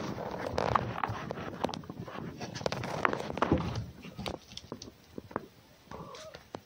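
A red fox and a cat play-fighting: scuffling and rustling with many sharp clicks and knocks of paws and claws on a wooden box and sawdust. It is busiest in the first three or four seconds, then turns sparser and quieter.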